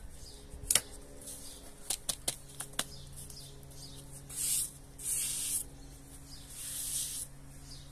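Gravel and trowel clicking against a small plastic plant pot as small stones are spooned onto the soil, with one sharp click about a second in and a few lighter ones after; then three short bursts of gritty scraping and rustling of potting mix as the pot is worked out of the soil and handled.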